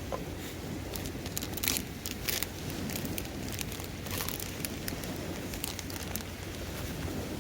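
Irregular sharp crackles and rustles of dry wood and kindling at a campfire, over a steady low rumble.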